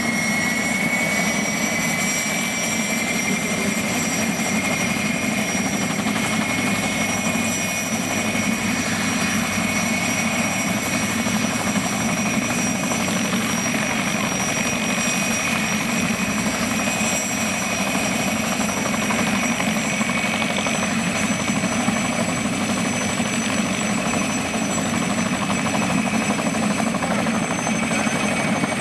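PZL-Świdnik Mi-2 helicopter running on the ground with its main rotor turning: a steady engine-and-rotor roar with a high whine from its twin turboshaft engines, the whine rising slightly in pitch over the first few seconds and then holding steady.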